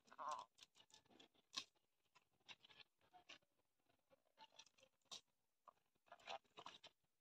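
Faint crackling and rustling of dry leaf litter and twigs, in scattered short clicks, as fish are picked up from the ground by hand. A brief warbling sound near the start.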